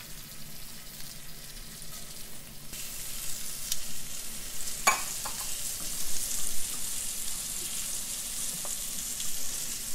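Pieces of fish frying in hot oil in a skillet, a steady sizzle that grows louder about three seconds in. About five seconds in, a single sharp clink of metal tongs against the pan.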